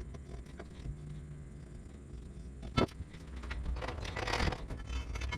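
Light scraping and handling noises, with a single sharp click almost three seconds in, as a pencil marks steel C-channel, over a low steady hum.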